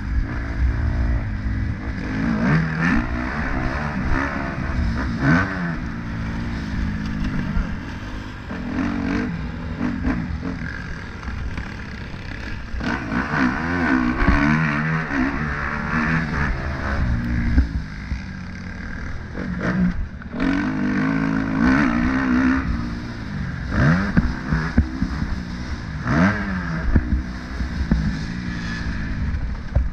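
Engines revving up and down repeatedly, the pitch rising and falling every second or two, over a steady low rumble.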